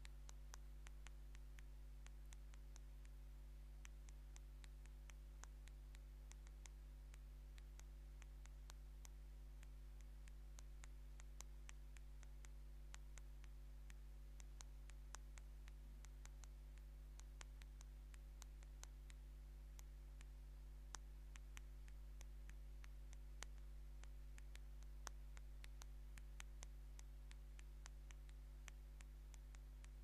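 Fingernails tapping out a text on an LG touch-screen phone's glass: quick, irregular light clicks, several a second, over a steady low hum.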